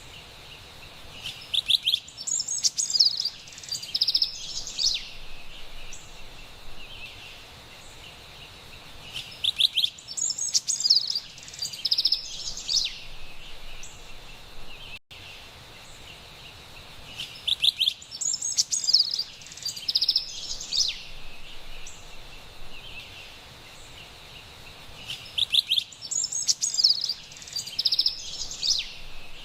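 Carolina wren singing: a burst of fast, repeated ringing notes comes four times, about every eight seconds, over a steady faint background hiss.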